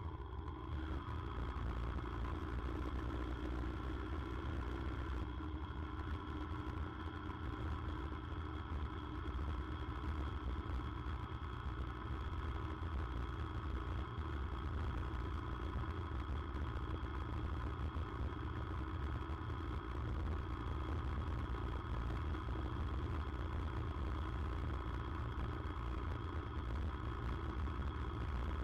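Yamaha motorcycle riding at a steady speed, picked up by a camera mounted low beside the front wheel: the engine runs with an even drone under road and wind noise.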